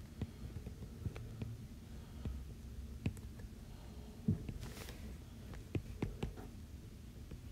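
Scattered faint taps and clicks of a stylus on a tablet's glass screen during drawing, over a low, uneven hum.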